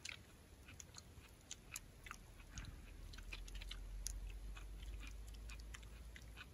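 Quiet eating sounds: scattered faint clicks and smacks of two people chewing their dinner. A faint low rumble comes in about two and a half seconds in.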